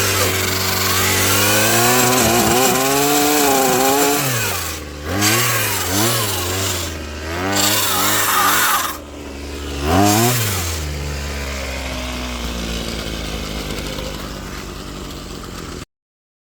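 Small gas engine of a Ryobi pole saw attachment running at high revs, then revved up and down several times before dropping to a lower idle. The sound cuts off abruptly near the end.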